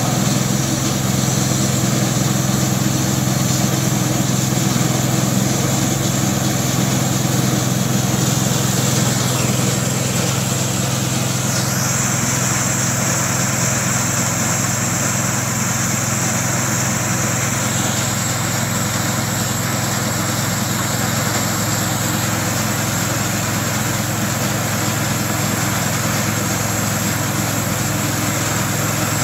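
Homemade bandsaw mill's small gas engine running steadily under load while the band blade saws through a black walnut log. A higher hiss from the cut grows stronger about twelve seconds in and eases back around eighteen seconds.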